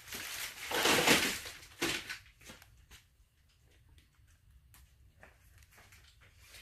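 Rustling and scraping of cardboard and plastic packaging being handled: a loud burst about a second in and a shorter one near two seconds, then mostly quiet with a few faint clicks.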